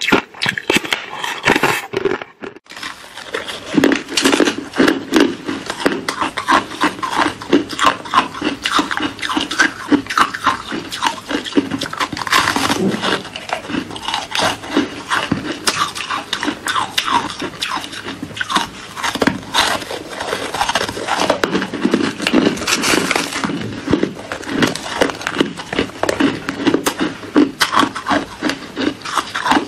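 Thin sheets of green-coloured ice being bitten and chewed close to the microphone: a continuous run of sharp, crisp cracks and crunches, with a brief break about two seconds in.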